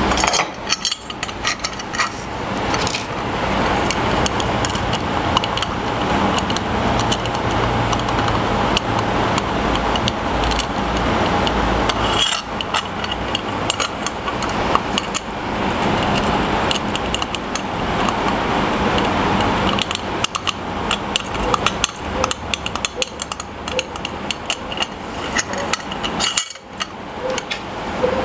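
Small metal parts and hand tools clinking, clicking and rattling as router-fence hardware is fitted by hand on a router table, over a steady background hum.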